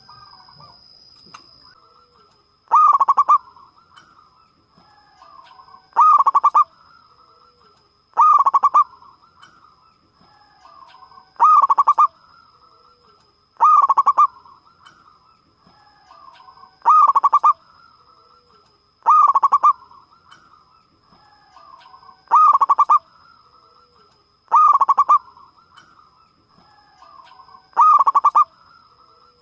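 Zebra dove (perkutut) cooing loudly over and over: about ten calls, each a quick run of rolling notes lasting under a second, one every two to three seconds, with softer coos in between. A faint steady high whine runs underneath.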